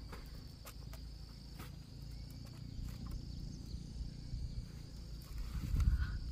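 Field insects chirring in a steady, continuous high drone, with scattered clicks and low handling thumps as watermelons are set into a wicker basket near the end.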